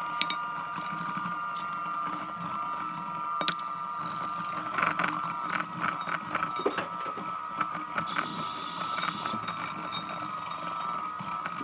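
Electric mixer running steadily with a high motor whine, its beaters clicking and knocking against the bowl as it mixes butter, sugar and eggs.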